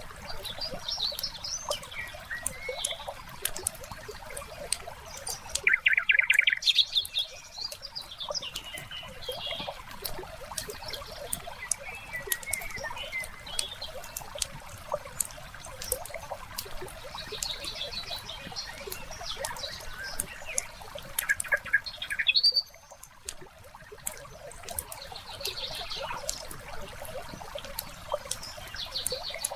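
Wood fire crackling with scattered snaps, under birds chirping and a soft trickle of water. A loud bird trill comes about six seconds in, and another about 21 seconds in.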